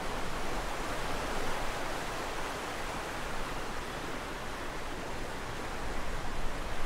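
Steady, even rushing noise with no tune, beat or voice in it.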